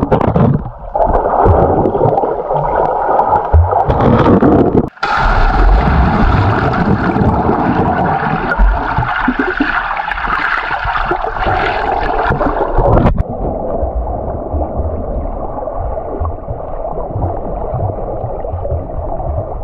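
Pool water heard from under the surface: a continuous muffled gurgling and bubbling as swimmers move through the water. The sound changes abruptly about five seconds in and again about thirteen seconds in.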